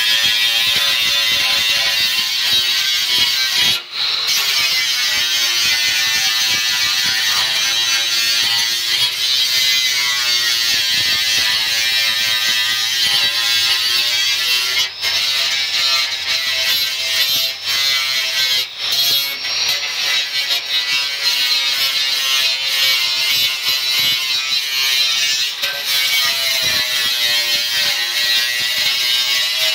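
Electric angle grinder with a cutoff wheel cutting through a Honda Civic's sheet-steel fender: a steady high-pitched grinding whine whose pitch sags and recovers as the wheel bites, with a few brief breaks.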